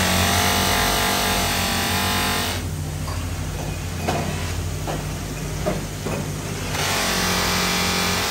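Motor-driven buffing wheel running with a steady hum, while a metal motorcycle wheel hub is pressed against the spinning buff, giving a loud rasping whine for the first two and a half seconds and again from about two-thirds of the way through. In between, with the hub eased off, the motor hum carries on under a few light clicks.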